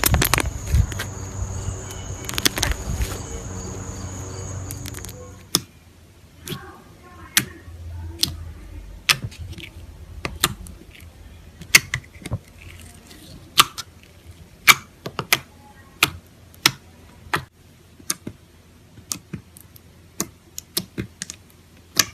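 Slime being handled: a dense, noisy stretch for about the first five seconds, then irregular sharp clicks and pops, a few a second, from the slime being pressed and its air pockets snapping.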